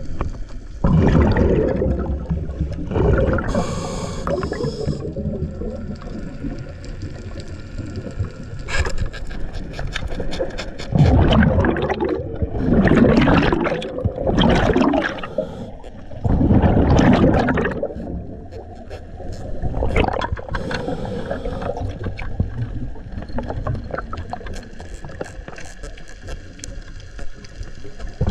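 Scuba regulator breathing underwater: irregular gurgling bursts of exhaled bubbles, the loudest in the middle, with quieter stretches between.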